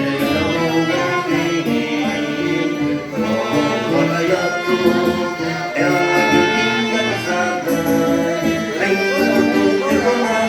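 Live dance band playing traditional Portuguese dance music, with sustained melody instruments over a steady beat.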